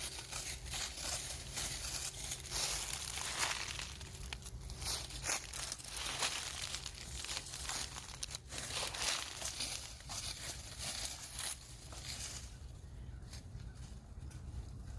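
Irregular crinkling and crackling rustle, dense and bright, easing off about twelve and a half seconds in.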